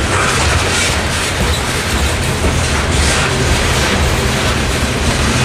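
Norfolk Southern coal train's hopper cars rolling past: a loud, steady rumble of steel wheels on the rails.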